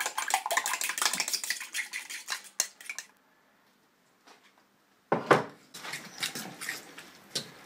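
Eggs beaten briskly with a utensil in a terracotta bowl: rapid clicking taps against the bowl. The sound cuts out entirely for about two seconds midway. It comes back as a utensil scraping and tapping in a ceramic dish, mixing the beaten eggs into grated raw potatoes.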